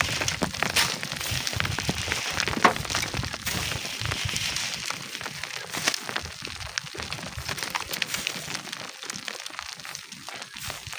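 Loose sand and stones crackling and clicking irregularly, over an uneven low rumble of wind on the microphone that eases off in the second half.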